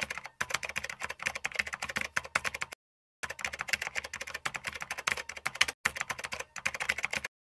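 Rapid clicking of typing on a computer keyboard, in quick runs broken by two short silent gaps, one about three seconds in and one near the end.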